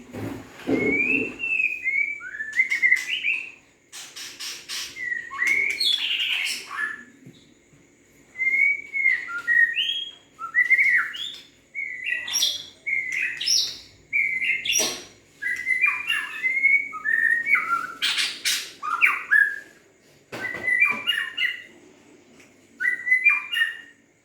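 White-rumped shama singing: short whistled phrases with quick up-and-down notes, repeated in bursts every second or two with brief pauses between them. Its call is likened to a car horn.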